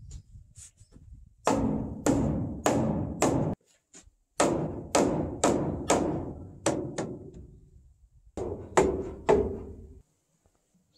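Mallet blows on a timber door-frame post, knocking it into its joint: thirteen sharp knocks in three runs of about two a second, each with a short hollow ring.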